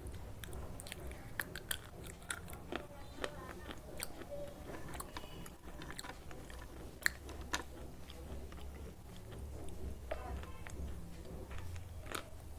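Slate pencils being bitten and chewed close to the microphone: irregular sharp crunches and cracks, over a steady low hum.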